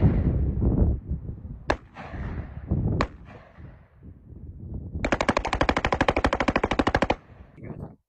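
Gunfire: single shots about two and three seconds in, then a rapid string of roughly thirty shots fired in just over two seconds, like a magazine being emptied.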